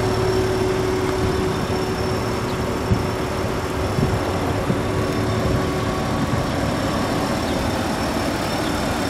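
Car engine idling steadily, a low even hum with no revving.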